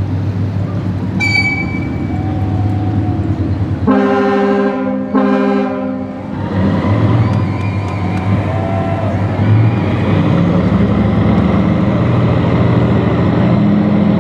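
A deep horn sounds two blasts, about a second each, over a steady engine drone that grows louder near the end. A short, high beep comes about a second in.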